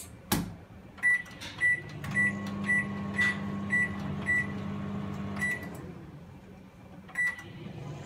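LG microwave oven being set: a thump as the door shuts, then a string of short high beeps, about two a second, as the keypad and dial are pressed, with one more beep near the end. The oven's low running hum sounds under the beeps and thins out for a moment before the last one.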